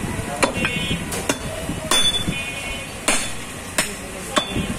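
Butcher's cleaver chopping through a cow's leg on a wooden chopping block: about six sharp blows at uneven intervals, some followed by a brief metallic ring.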